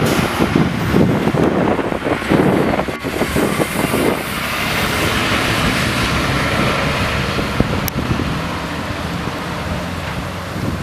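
Wind buffeting the microphone in irregular low thumps, with a truck passing on the road alongside, its noise swelling through the middle and fading near the end.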